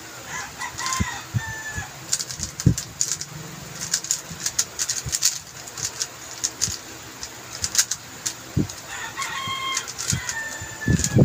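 QiYi M Pro 3x3 speedcube being turned quickly in the hands: a run of fast clacks and clicks as its layers snap through turns, with a few low knocks. A bird calls briefly twice in the background, near the start and near the end.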